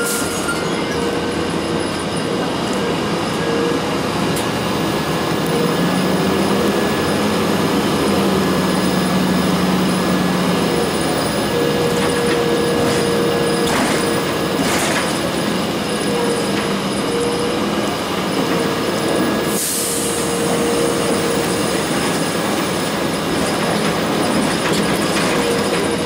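Inside a 2002 Blue Bird CS transit bus on the move: its Cummins ISC inline-six diesel and Allison B400R automatic transmission drone steadily over road noise, with a hum that swells and fades. A few brief rattles come around the middle.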